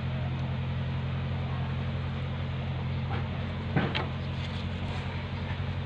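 A motor or engine running steadily with a low hum, with one sharp knock a little under four seconds in.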